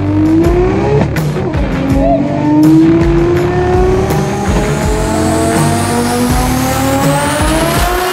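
Turbocharged 2JZ straight-six of a Toyota Supra accelerating hard: the engine's pitch climbs, drops at a gear change about a second in, then climbs steadily again, with a high turbo whine rising over the last few seconds. Rock music with a beat plays underneath.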